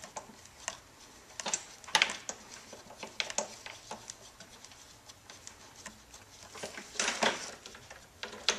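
Plastic nylock knob being turned by hand onto a lawn mower's handle bolt: scattered light clicks and rattles from the knob, handle and cables, with louder ones about two seconds and about seven seconds in.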